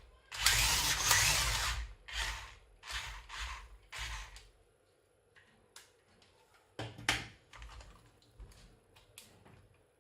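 Plastic clicking and rattling from a Rabing 1:14 RC crawler truck's plastic body and spring suspension as it is worked. A dense rattle runs for about a second and a half near the start, then comes in shorter clusters, then in scattered single clicks.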